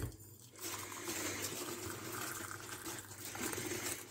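Water poured from a kettle into a ceramic mug, a steady splashing pour that starts about half a second in as the mug fills.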